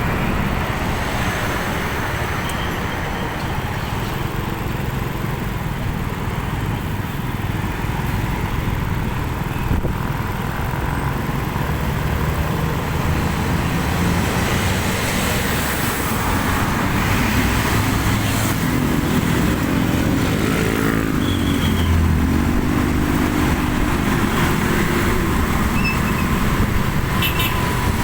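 Road traffic: vehicle engines and road noise running steadily. About two-thirds of the way through, one engine's pitch rises and falls for several seconds.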